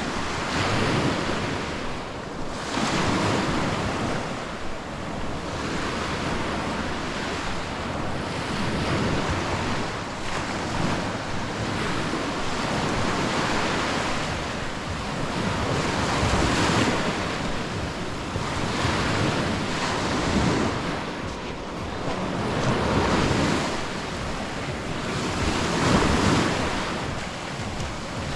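Small sea waves breaking and washing up the beach, swelling and fading every few seconds, with wind buffeting the microphone.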